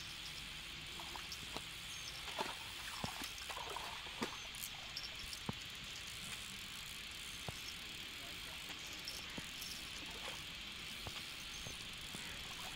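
Faint outdoor ambience: a steady high hiss with scattered faint clicks and ticks.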